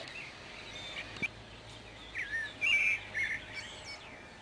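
Songbirds chirping and whistling in short, quick calls, most of them bunched in the middle, over a faint steady outdoor background.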